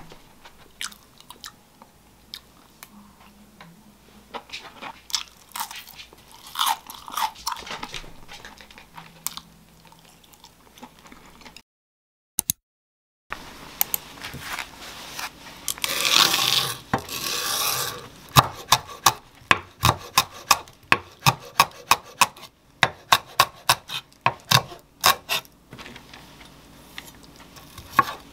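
Chewing and light chopstick clicks while eating grilled beef, then a brief silence and a short rustle of handling. From about two-thirds of the way in, a kitchen knife chops onion on a wooden cutting board in quick, regular strokes, two or three a second.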